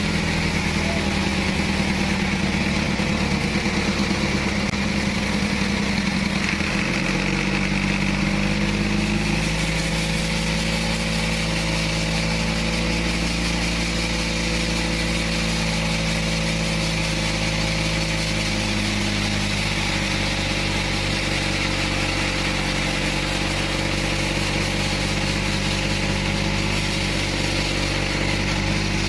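Engine of a bandsaw sawmill running steadily, its pitch shifting slightly about seven seconds in and again later.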